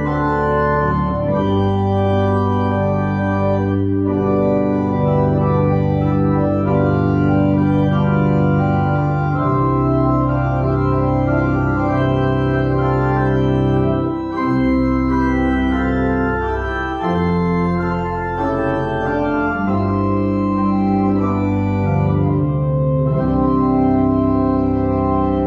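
Church organ playing sustained chords over a bass line that moves in slow steps.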